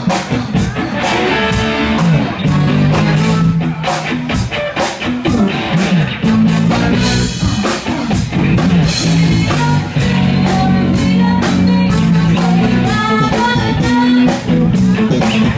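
Live band performance: a woman singing into a microphone over a drum kit keeping a steady beat, with guitar.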